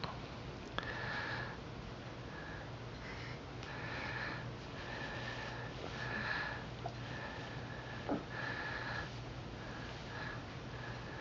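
Close nasal breathing: a run of short breaths, roughly one a second, many with a thin whistle, over a faint low hum.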